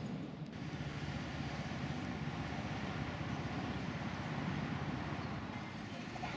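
Steady low rumble and hiss of background noise, even throughout with no distinct events.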